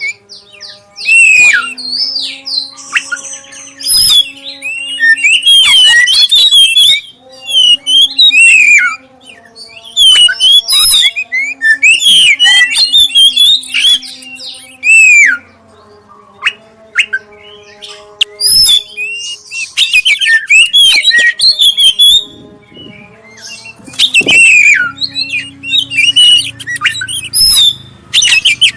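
Black-breasted Oriental magpie-robin (kacer dada hitam) singing a loud lure song: phrases of rapid, sweeping whistles and chattering chirps broken by short pauses. Steady low tones come and go underneath.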